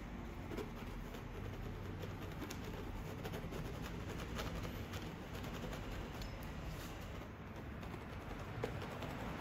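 Palette knife spreading oil paint on a canvas: faint scraping with scattered small clicks over a low steady hum.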